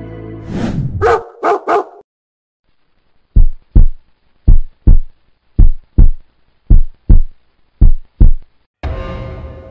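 Intro sound effects: a swoosh and three quick dog-bark sounds, then a heartbeat effect of five loud double thumps, about one a second. Music comes back in near the end.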